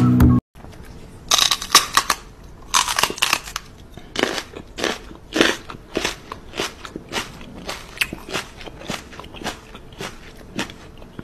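Small dog, a Yorkshire terrier, licking and snuffling at a person's face close to the microphone: a run of short, sharp smacking sounds, about two a second, growing fainter toward the end.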